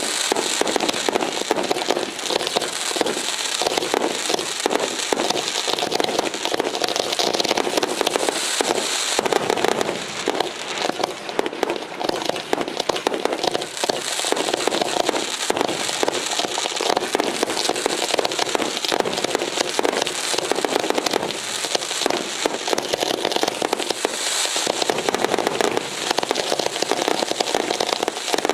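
Fireworks display: a dense, continuous barrage of crackling and popping aerial bursts, crowded close together.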